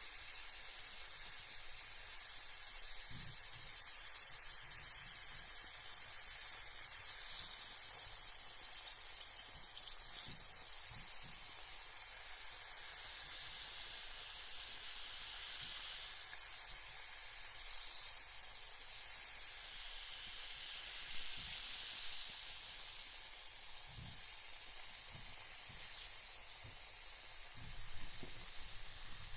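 Carbonated bath bomb fizzing in bath water: a steady high hiss of bursting bubbles that swells twice in the middle and eases off a little after about 23 seconds, with a few faint low bumps.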